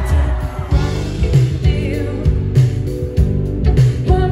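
Live pop-rock band playing through the PA: drums, electric guitars and bass, with a woman singing at times.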